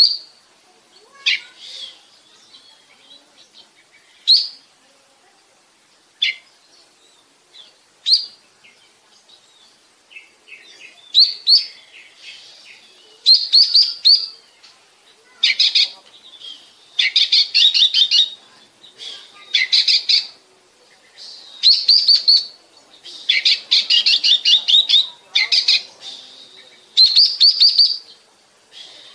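Oriental magpie-robin singing: scattered single chirps at first, then from about ten seconds in, bursts of fast, rapidly repeated high notes, each burst about a second long, coming every second or two.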